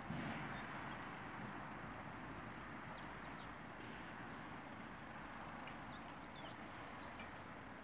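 Steady outdoor background noise with scattered faint, short bird chirps.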